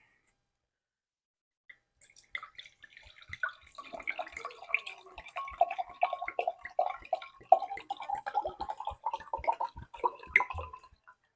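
Chardonnay being poured from a bottle into a wine glass, glugging and splashing. It starts about two seconds in and stops just before the end.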